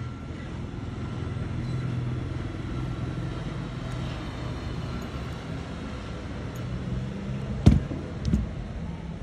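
A steady low mechanical hum with two sharp knocks near the end, the first the louder.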